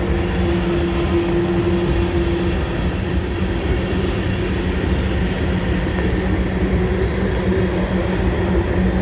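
Freight train cars rolling past on the rails: a loud, steady rumble of wheels on track with a low hum running through it. A thin, high wheel squeal comes in faintly near the end.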